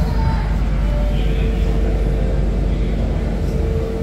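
Ocean Express funicular car moving slowly, heard from inside the carriage: a steady low rumble with a constant humming tone over it.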